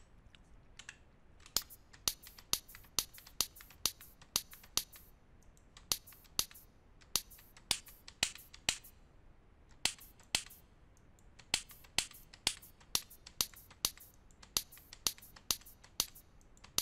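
A snare sound built from a hand-clap recording, high-pass filtered and given a short reverb, played back over and over from a sampler in Ableton Live while its attack is adjusted. The hits are sharp and bright, irregular at about three a second, and start about a second and a half in.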